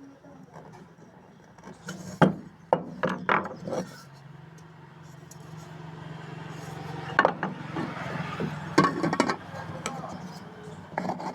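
Sharp knocks, clicks and clatter of tools working on a pressure cooker's handle and lid, in clusters about two, three to four, seven and nine seconds in, over a steady low hum that swells through the middle.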